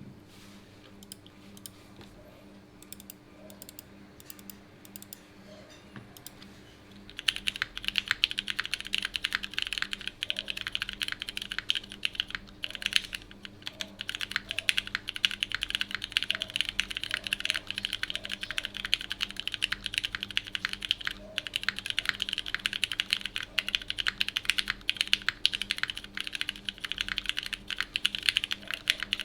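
Custom mechanical keyboard being typed on: a top-mount Monokei Kage with a polycarbonate plate, no foam, lubed pre-retooled Cherry MX Black linear switches and GMK keycaps. Only faint scattered ticks for about the first seven seconds, then fast, continuous typing.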